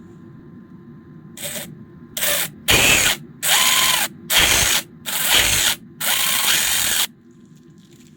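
DeWALT cordless impact wrench run in seven short trigger pulls, each a fraction of a second to about a second long, the first one brief and quieter.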